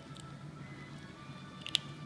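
Soft background music with held tones. Near the end comes a single sharp crunch: a kitten biting into dry kibble.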